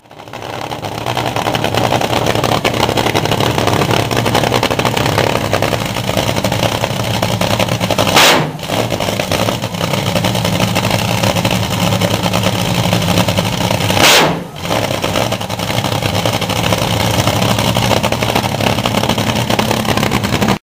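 Nitro-burning drag racing engine running a pit warm-up, loud and steady, with two sharp throttle blips about eight and fourteen seconds in.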